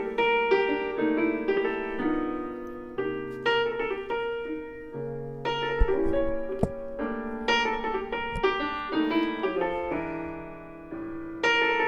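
Piano music: a melody of single notes and chords, played at a moderate pace.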